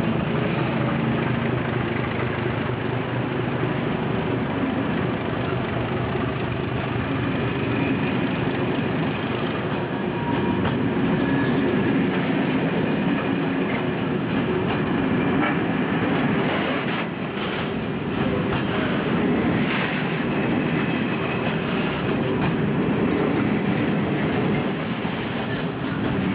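Class 749 diesel locomotive passing close with its engine running, then a long train of freight wagons rolling past, with wheels clattering over rail joints.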